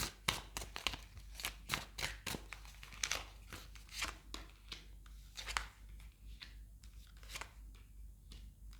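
A deck of tarot cards being shuffled by hand: a run of quick, irregular card flicks and taps that thin out over the last few seconds.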